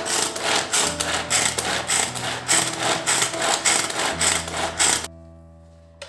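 Manual pull-string food chopper being pulled rapidly again and again, its spinning blades rattling and whirring as they mince onion in the plastic bowl. The rattling stops abruptly about five seconds in.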